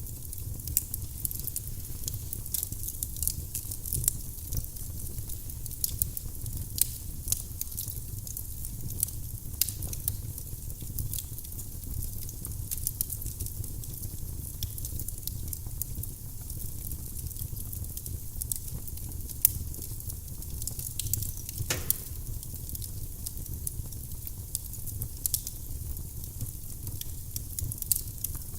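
Firewood burning in a fireplace: steady crackling with frequent sharp pops over a low rumble. Once, about three-quarters of the way through, there is a short falling whistle.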